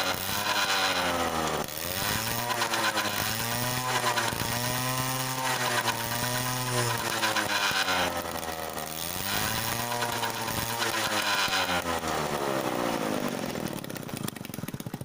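Bajaj Sunny's small two-stroke scooter engine being revved up and down again and again, the rear wheel spinning free on the stand. It runs with a freshly fitted silencer gasket that was meant to cure an exhaust leak, and it dies away near the end.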